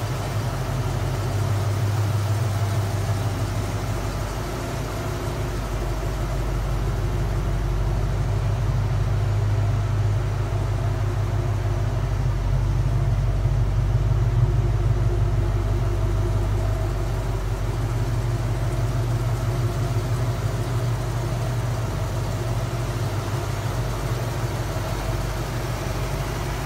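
1988 Ford McLaren Mustang's 5.0-litre V8 idling steadily, growing a little louder midway.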